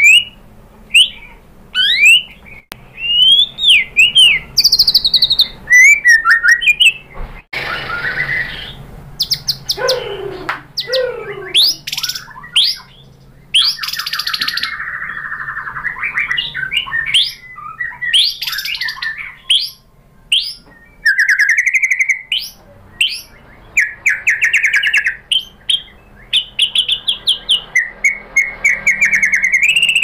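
Male white-rumped shama (murai batu) singing a long, varied song of quick rising and falling whistles, rapid trills and rattling runs, with one harsh scratchy phrase about a quarter of the way in. The phrases follow one another with only short pauses.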